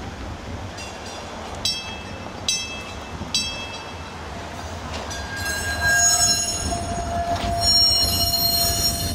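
PCC streetcar's steel wheels squealing on the rails over a low rumble. Three short high squeaks come about a second apart, then from about five seconds in a steady high-pitched squeal swells and is loudest near the end.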